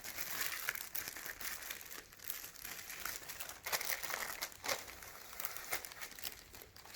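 Packaging being handled and unwrapped, with irregular crinkling and rustling throughout.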